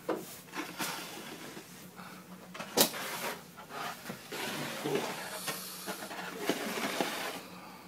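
Steady outdoor hiss of a snowy street scene, with one sharp click just under three seconds in.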